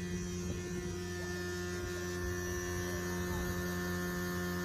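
Electric aerator motors on round shrimp ponds running with a steady hum.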